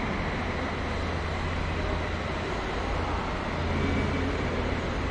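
Steady low rumble with an even hiss over it: background room noise with no distinct events.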